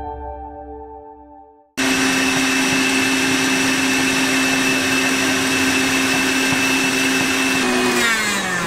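A chime fades out, then a KitchenAid Ultra Power stand mixer starts abruptly and runs at a steady high speed, a motor whine over whirring. Near the end the whine drops in pitch as the mixer slows down.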